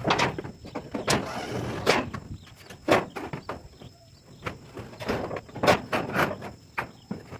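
Corrugated metal roof sheeting being handled and fitted: a string of irregular knocks and clatters on the sheet metal, with a short scraping slide about a second in.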